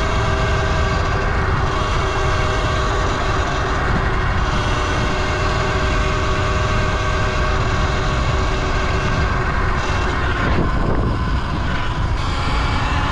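Falcon Pro 79 electric dirt bike being ridden off-road: heavy wind rush on the microphone and tyre noise, with the electric motor's steady whine in the background. The noise eases briefly about ten and a half seconds in.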